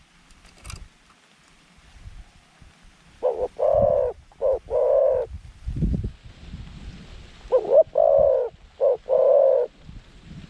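A dove cooing: two phrases, each of four notes in a short-long-short-long pattern, about four seconds apart, with a low thump between them.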